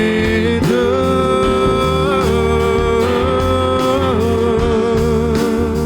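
Praise and worship song with a band: singers hold out the word "surrender" as one long note in harmony from about a second in, over a steady bass and a light beat.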